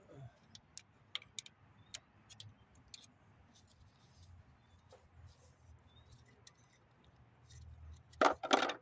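Scattered small metallic clicks and taps of hand tools and loosened parts being worked on an engine. Near the end come two louder, longer clatters.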